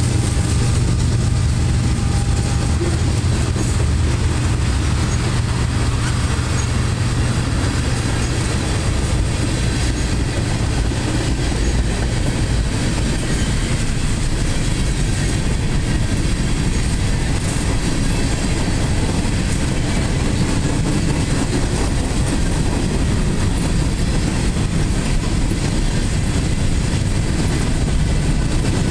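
Freight train cars, mostly covered hoppers, rolling past close by: a steady, loud rumble of steel wheels on the rails.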